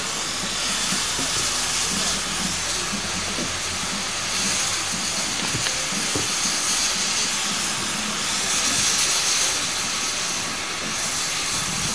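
Steady hiss of steam escaping from standing GWR pannier tank steam locomotives, swelling a little about nine seconds in, with voices faintly underneath.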